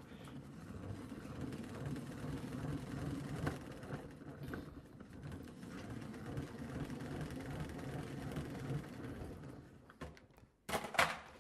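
Plastic salad spinner whirring as it spins washed lettuce dry; the steady whir fades away about ten seconds in, then a short clatter comes as the lid is taken off.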